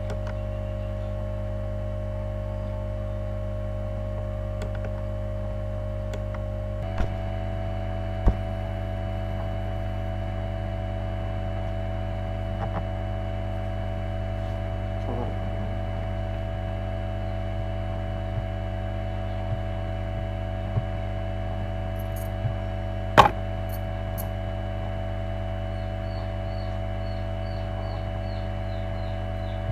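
Steady electrical hum with a thin whine that steps up slightly in pitch about seven seconds in, broken by a few sharp clicks of a computer mouse, the loudest about twenty-three seconds in.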